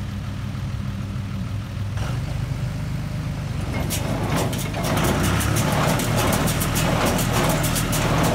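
Tractor engine running steadily while driving a John Deere 336 small square baler. About four seconds in, a rhythmic metallic clatter from the baler's working mechanism starts up and the sound grows louder.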